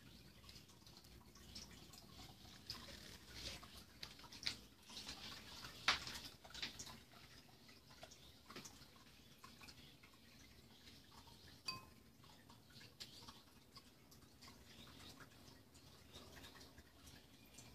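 Faint scattered clicks and ticks over quiet room tone, thickest a few seconds in, with one sharper tick near the middle that rings briefly.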